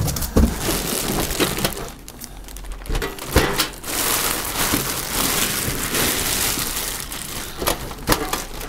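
Clear plastic bag crinkling and rustling as hands pull it off a boxed stainless-steel camp stove, with a few sharp knocks, the loudest about three seconds in.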